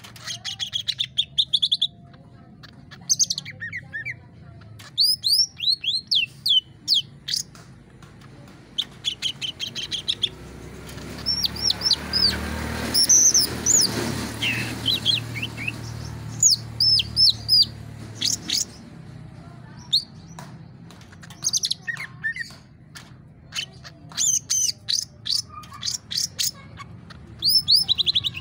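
Caged green leafbird (cucak ijo) singing: quick runs of sharp, high chirps and sweeping whistles, broken by short pauses. A low rumbling noise swells and fades in the middle.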